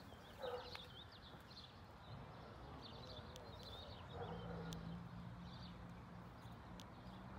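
Faint outdoor ambience: small birds chirping on and off over a low background rumble, with a steady low hum coming in about four seconds in and a few faint clicks.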